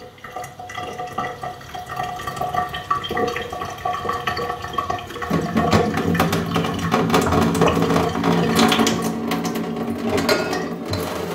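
Thin, reduced stream of water from a reverse-osmosis system's kitchen faucet running into a wine glass as it fills. About five seconds in, a steady low hum joins the running water.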